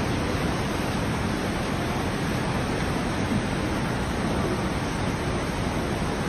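Steady, loud rushing noise of water during a flash flood, with no distinct individual sounds in it.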